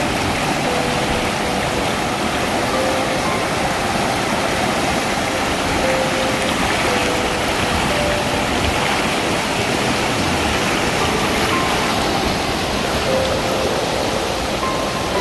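Steady rush of falling, cascading water from a waterfall.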